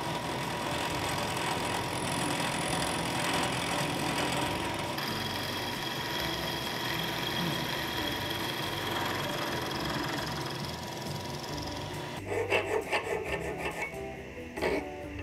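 Vertical milling machine running, its end mill cutting a shoulder into a metal block held in the mill vise: a steady whir with a faint steady tone. About twelve seconds in it gives way to several uneven rasping strokes of a hand file on the part.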